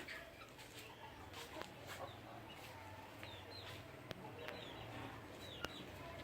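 Chickens calling faintly: scattered short, high chirping notes, several falling in pitch, with a few sharp clicks and a low steady hum underneath.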